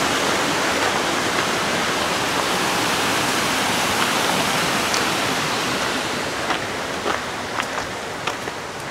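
Rushing creek water cascading, a steady hiss that slowly fades over the last few seconds, with a few faint clicks near the end.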